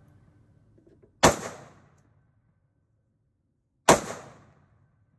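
Two rifle shots about two and a half seconds apart, each with a short echoing tail.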